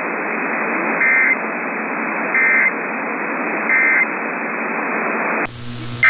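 Emergency Alert System end-of-message signal: three short bursts of digital data warble, about 1.3 seconds apart, over the steady hiss of AM radio reception. Near the end the hiss cuts off and a low hum takes its place.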